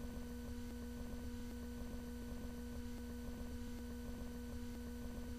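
A steady low hum: one held tone with faint overtones above it, unchanging throughout, over a faint low background rumble.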